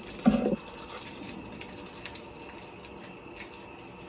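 A short knock about a quarter second in, then a steady faint hiss with light scattered crinkles of plastic MRE packaging being handled and cut open with a knife.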